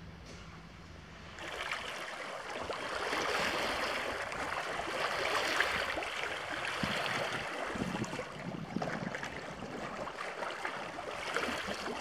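Small waves lapping and trickling over stones and pebbles at the water's edge of a lake, a steady, fluttering wash of water that comes in about a second and a half in.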